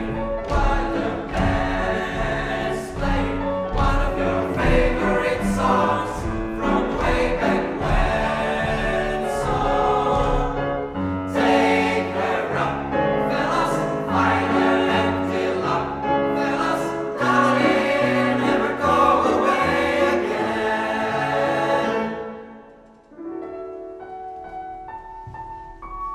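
Boys' choir singing a Broadway medley. About 22 seconds in the singing stops and a piano carries on alone, playing single held notes that step upward.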